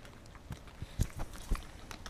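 Pembroke Welsh corgis chewing and crunching treats, with small crisp clicks. A few dull thumps come from a dog moving right against the camera, the loudest about a second in and again half a second later.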